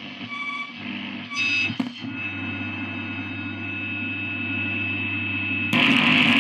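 Loudspeaker output of a Grundig 3160 tube radio. Faint station sound and whistles come first, with a click a little before two seconds. Then a steady hum with a thin high whistle, and near the end a sudden loud rush of noise as the internal/external antenna push-button is worked: that switch has gone very noisy.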